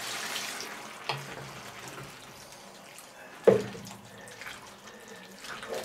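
Broth pouring from a jar into a cast-iron Dutch oven of browned meat, splashing onto the hot food and fading out as the pour ends. A sharp knock comes about three and a half seconds in.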